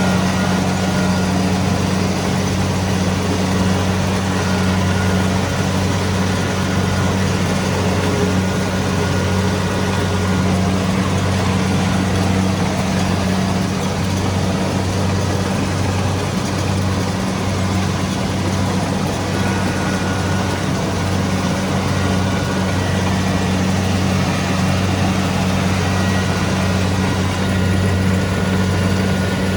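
Kubota DC-70 Pro combine harvester's diesel engine running steadily at a constant pitch, with a broad mechanical rush over the engine hum.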